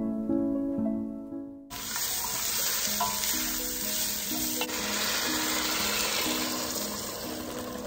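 Gentle plucked harp music, cut off about two seconds in by a steady sizzle of roasted butternut squash and potato cubes being stirred in a hot enamelled cast-iron Dutch oven, with one light clack of the spatula against the pot; vegetable stock is poured in near the end. The harp music goes on faintly underneath.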